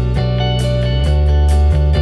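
Background music led by guitar over a strong bass line, with a steady beat.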